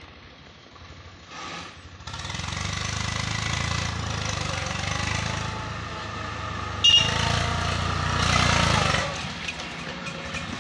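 Swaraj 855 FE tractor's three-cylinder diesel engine throttled up from about two seconds in as it tows its trolley into position, dropping back at about nine seconds when it stops. A single sharp clank, the loudest sound, comes near the seven-second mark.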